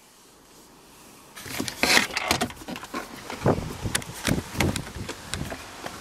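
Handheld camera handling noise: rustling and a quick run of irregular light knocks and clicks as the camera is picked up and lowered into a car's driver footwell. It starts about a second and a half in, after a near-quiet start.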